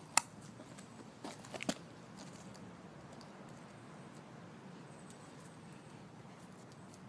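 Clicks and taps of a Newfoundland puppy's claws and carried stick on wet pavement: one sharp click just after the start, then a few softer clicks about a second and a half in, over a low steady background.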